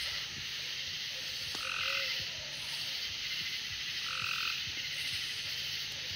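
A chorus of frogs calling steadily, with a couple of louder calls standing out about two seconds in and again about four seconds in.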